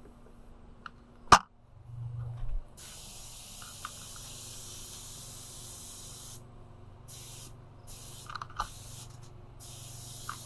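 Compressed-air paint spray gun spraying car paint, a steady hiss that starts about three seconds in and breaks off and restarts several times in the second half as the trigger is let go between passes. A sharp click comes about a second in, and a low steady hum runs under the spraying.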